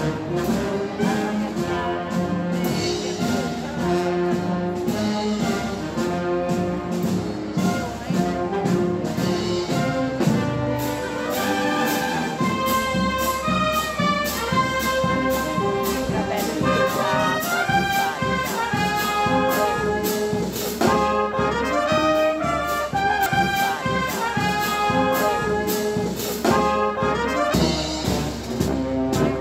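Marching band of clarinets, trumpets and sousaphones playing a march, with a steady beat.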